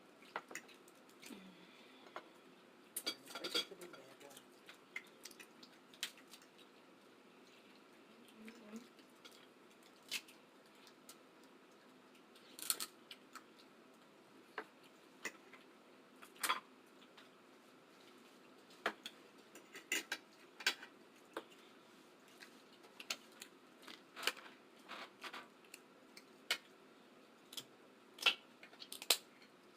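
Eating a seafood boil: scattered, irregular sharp clicks and cracks of shells being broken and handled, with chewing and mouth sounds.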